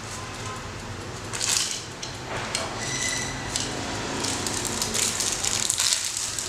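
Plastic packaging rustling and crinkling as it is handled, in irregular bursts, loudest about a second and a half in and again over the last couple of seconds.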